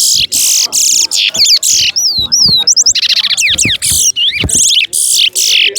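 Towa-towa (chestnut-bellied seed finch) singing loudly in rapid, almost unbroken phrases of buzzy trills and curving whistled notes.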